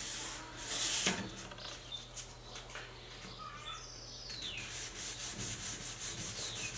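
Fine 400-grit sandpaper rubbed by hand in quick back-and-forth strokes over a lacquered wooden drawer front, a light scratchy hiss. This is the gentle scuff-sanding of the dried sealer coat before the next finish coat goes on.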